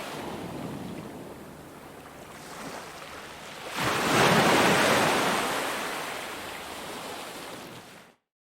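Ocean waves on a beach: a wave breaks about four seconds in and its wash slowly fades, then the sound cuts off abruptly near the end.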